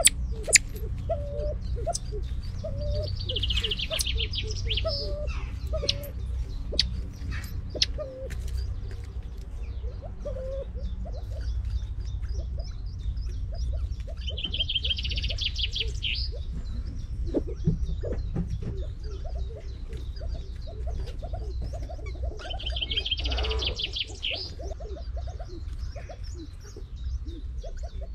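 Edwards's pheasants feeding with their chicks: short, soft low call notes about once a second for the first ten seconds, and scattered light clicks of pecking at grain on bark chips. A songbird gives three brief high trills in the background, over a steady low rumble.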